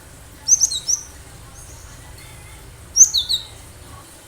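Cinereous tit (gelatik batu) singing: two short bursts of quick, high chirping notes, the first about half a second in and the second about three seconds in.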